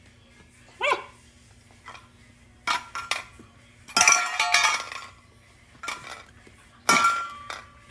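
Stainless steel dog bowl clanging and rattling on a tile floor in several bursts as a mini labradoodle puppy paws and knocks it about, loudest about halfway through. One short puppy yip about a second in.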